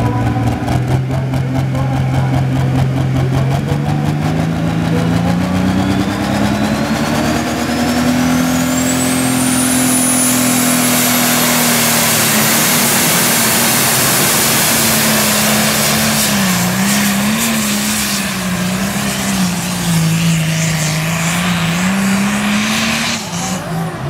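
Pro farm class pulling tractor's turbocharged diesel engine under full load pulling a weight-transfer sled. The revs climb over the first several seconds with a high turbo whine rising alongside, then hold high and waver as the run goes on, and fall away near the end as the driver lets off.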